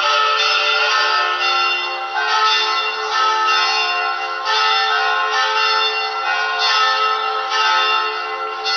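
Church bells pealing, several bells struck in quick succession about once every half second to a second, so that their ringing overlaps into continuous clangour.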